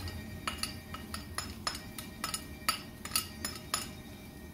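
Kitchen utensils, a knife and spatula, tapping and clinking against a frying pan as sliced green onion is scraped in: an irregular run of short sharp clicks, about four a second.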